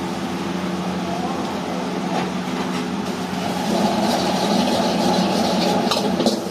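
Rice stir-fried in a steel wok over a gas burner, under a steady mechanical hum from the overhead extractor fan and burner. About four seconds in, as the wok is tossed, sizzling and the metal ladle scraping and clanking against the wok grow louder.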